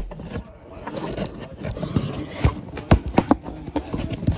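Cardboard shipping box being handled: rubbing and scraping with a run of irregular sharp knocks, the loudest about halfway through.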